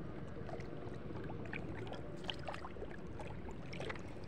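Gentle water lapping around a small inner-tube float, a low steady wash with scattered faint ticks.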